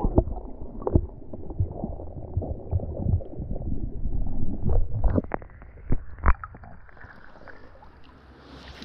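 Muffled gurgling and sloshing of creek water around a camera held under the surface, with many sharp knocks and bumps. About six and a half seconds in, the knocking stops and the sound turns quieter and clearer as the camera comes up out of the water.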